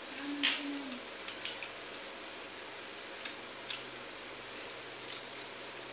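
Hands mixing and scooping watery pakhala rice in steel bowls, with sharp clicks against the steel. The loudest click comes about half a second in, and a few lighter ones are scattered through, over a steady background hiss.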